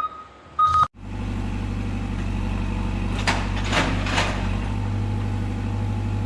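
Forklift: a reversing beep ends just under a second in, then the engine runs with a steady low hum. A few short noisy bursts come around three to four seconds in.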